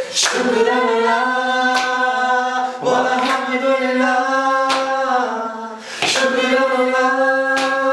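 A small group of men and a woman singing a slow melody together a cappella, holding long notes and pausing briefly for breath twice. A single hand clap keeps time roughly every one and a half seconds.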